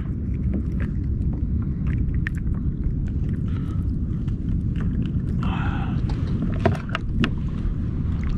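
Steady low rumble of wind on the microphone, with scattered light clicks and taps from handling a small fluke and the hook in the angler's lap.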